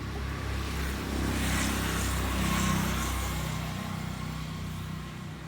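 A motor vehicle passing by: its engine hum and tyre noise swell up about a second in, peak, then fade away.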